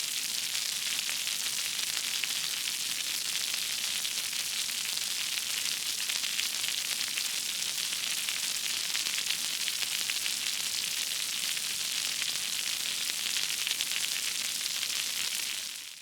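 Water falling and splashing onto concrete: a steady, even hiss of spray, fading out near the end.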